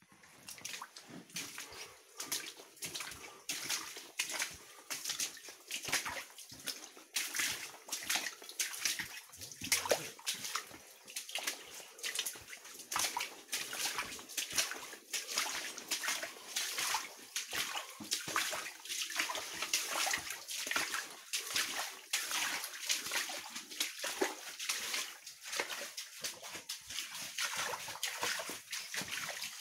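Footsteps sloshing and splashing through shallow water on a mine tunnel floor, a steady irregular walking pace of about two to three splashes a second.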